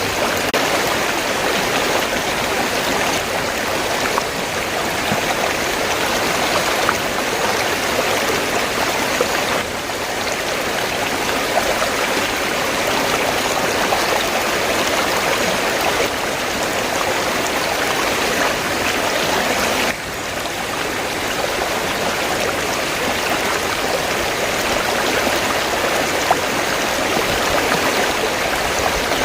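River water flowing in a steady, continuous rush, with brief slight dips in level about ten and twenty seconds in.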